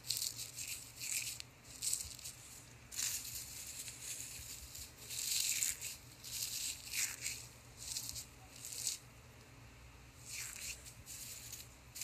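Dried mint and parsley leaves rustling and crackling as a hand scoops them up and lets them fall, in short crisp bursts every second or two.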